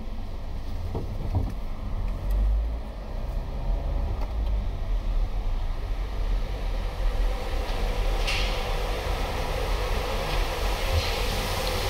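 Automatic car wash machinery running with a steady low rumble; about eight seconds in, a rushing hiss builds up and stays.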